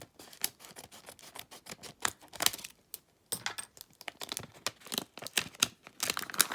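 Packaging crinkling and tearing as a parcel is unwrapped by hand: a run of irregular crackles, with a short pause about halfway through.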